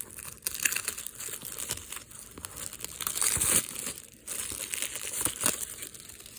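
Factory shrink-wrap plastic being torn and peeled off a Blu-ray case, crinkling and crackling in uneven bursts.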